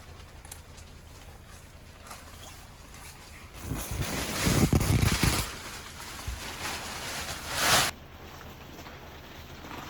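Strong wind gusting, rushing and buffeting the microphone with a deep rumble for about two seconds from around three and a half seconds in. A second gust rises near the end and cuts off suddenly.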